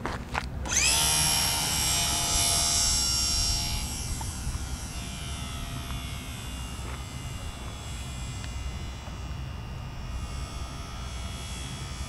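HobbyZone Super Cub RC plane's electric motor and propeller whining up sharply to full throttle about a second in for takeoff, then the whine slides down in pitch and fades as the plane climbs away. A steady low rumble of wind on the microphone runs underneath.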